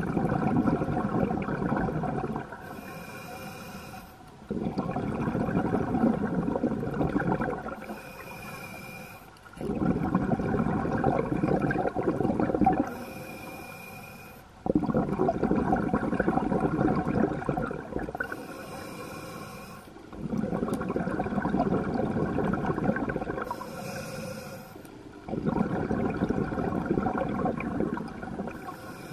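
Scuba diver breathing through a regulator underwater. Six slow breaths, about one every five seconds: each exhale is a loud bubbling rumble of released air lasting two to three seconds, and a short, quieter hiss of the inhale through the regulator falls between them.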